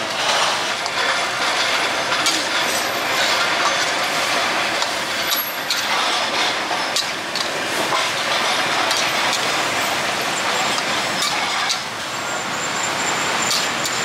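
Stir-frying in a steel wok over a gas burner: a steady sizzling hiss with many clinks of a metal spatula against the wok, over street traffic noise.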